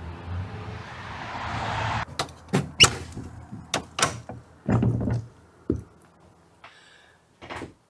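A door being worked: a rush of noise swells for about two seconds, then a run of sharp clicks and knocks from the latch and handle, with a last knock near the end.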